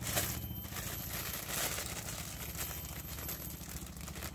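Light metallic clinks and crinkling rustles of small camping cookware and packets being handled while coffee is prepared, with two louder knocks, just after the start and about a second and a half in, over a steady low hum.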